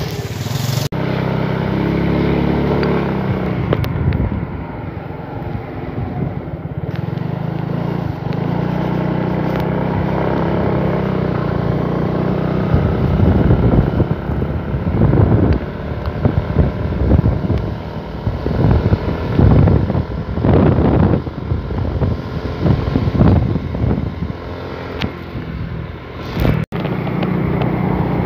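Motorcycle engine running steadily while riding, recorded from on board. From about halfway through, wind buffets the microphone in irregular gusts.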